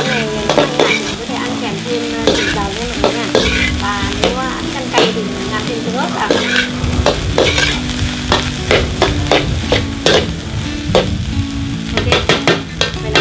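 A metal ladle scrapes and clanks against a steel wok as egg fried rice is stir-fried, with the rice sizzling in the hot pan. The clanks come irregularly, with a quick run of them near the end.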